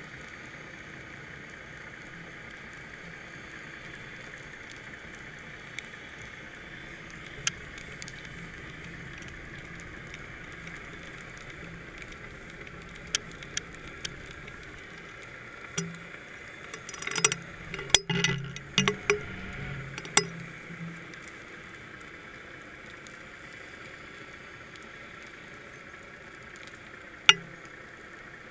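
Steady muffled hiss of water heard from a GoPro in its waterproof housing on a fishing line deep underwater. A quick run of sharp clicks and knocks comes a little past halfway, with one more click near the end.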